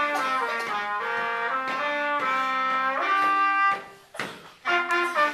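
Two saxophones playing a duet: held notes in two parts moving together, with brief breaks between phrases near the end.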